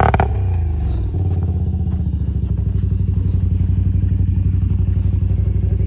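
ATV engine easing off from a rev in the first second, then idling steadily with an even throb, the quad sitting bogged down in deep snow.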